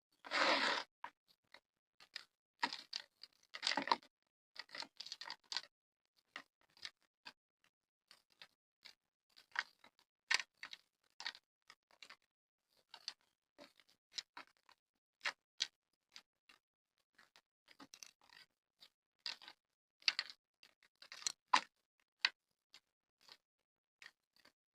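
Hard, gritty black mud crumbling, with a dense crunch in the first second and another around four seconds in, then scattered small crackles and ticks with quiet gaps between.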